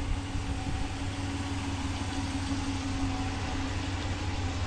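Car running: a steady low rumble of engine and road noise with a constant hum.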